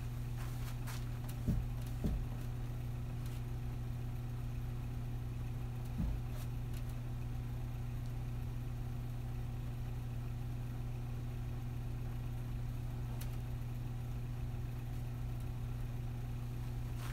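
Steady low hum, with three short thumps: two close together near the start and one about six seconds in.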